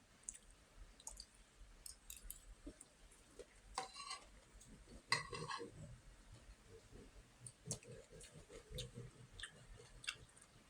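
Quiet eating sounds: scattered small mouth clicks and chewing, with two louder, longer sounds about four and five seconds in.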